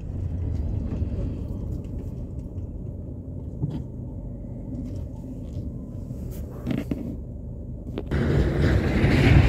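Steady low rumble of a motor vehicle on the road, growing louder and fuller near the end.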